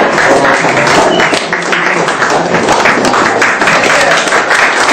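Applause: a roomful of people clapping steadily.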